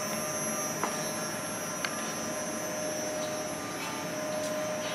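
CNC woodworking lathe running steadily, a constant machine hum with a high whine over it. Two light clicks come about a second apart early in the sound.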